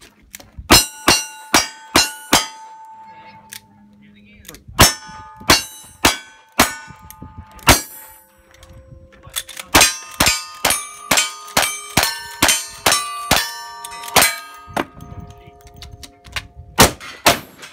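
Revolver shots at steel targets, each crack followed by the ring of the struck plate: five shots, a short pause, then five more. A lever-action rifle then fires a fast string of about a dozen shots that set the steel ringing, and two heavier shotgun blasts come near the end.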